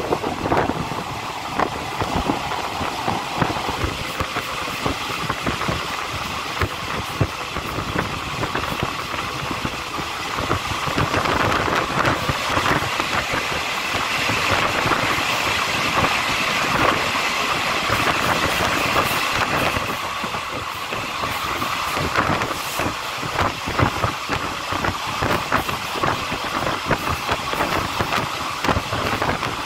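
Passenger carriage of a diesel-hauled train running along the track, heard at an open door: steady rail noise with many short rattling knocks from the wheels, and rushing air. From about 11 to 20 seconds in, the noise is louder and brighter while the train passes through a tunnel.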